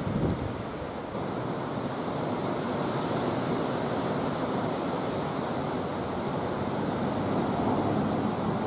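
Strong wind rushing over the microphone in a storm, a steady roar with a low buffeting gust right at the start.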